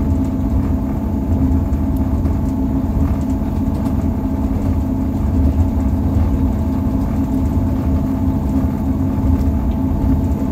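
Steady drone of a diesel passenger train heard from inside the carriage: engine hum and running noise, low and even, with several constant humming tones.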